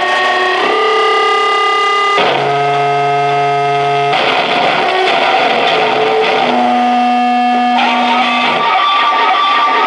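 Loud live noise music from amplified electronics: held, buzzy electronic tones rich in overtones that jump abruptly to a new pitch every second or two, over a constant harsh noisy wash.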